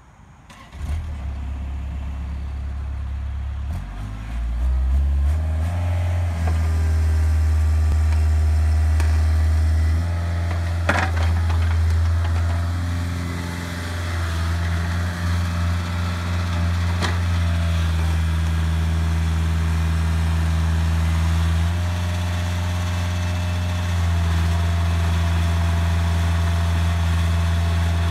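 Bobcat 430 mini excavator's diesel engine starting up about a second in, its speed rising over the next few seconds, then running steadily. Two sharp clicks stand out partway through.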